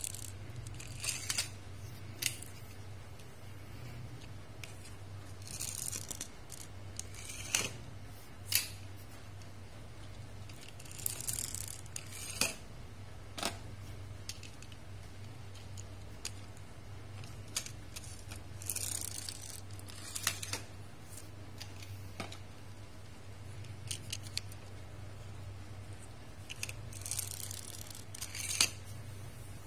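Small toy cars being pushed and set down on a hard, smooth floor: short scraping whirs of their little wheels every few seconds, and sharp plastic clicks as the cars tap down and knock against each other. A steady low hum runs underneath.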